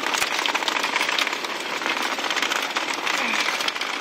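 Several Hexbug Nano vibrating toy bugs buzzing and clattering as they skitter around a plastic arena: a steady, dense rattle of many rapid ticks.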